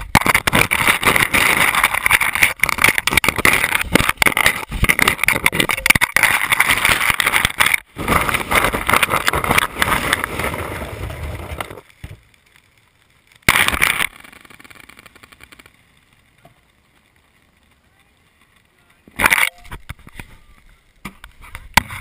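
Ice cubes clattering and crunching in a plastic cooler as beer cans are pushed down among them. The crunching is loud and dense for about twelve seconds, then stops, and two short rattles follow later.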